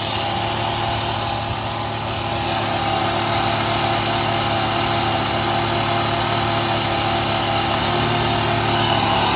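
Volvo inline-five engine idling with an accessory-drive noise while the air conditioning is switched on. The noise does not change with the AC on, so the AC compressor is probably not the cause; the power steering pump or alternator are the other suspects.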